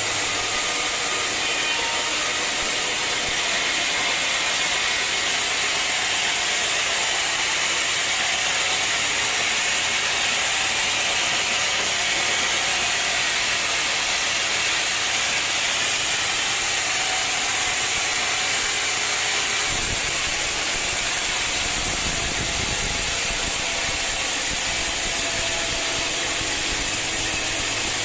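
Sawmill machinery running with a steady, hissing mechanical noise; a low rumble joins in about twenty seconds in.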